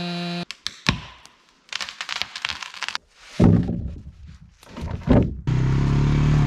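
A string of short clips: a steady pitched engine tone cut off suddenly about half a second in, a run of cracks and knocks, two heavy thuds, then an ATV engine running steadily for the last second or so.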